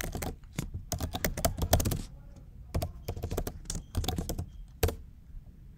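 Typing on a computer keyboard: a quick run of keystrokes, a short pause, then a second run ending in one louder keystroke just before five seconds in.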